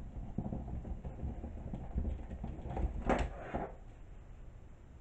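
Painted wooden clothespins on a wire wreath frame rattling and clacking as the wreath is handled and then picked up, with a louder clatter about three seconds in.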